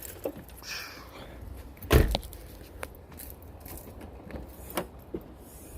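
Gear being handled in a car's cargo area: scattered clicks and knocks, with one louder thump about two seconds in.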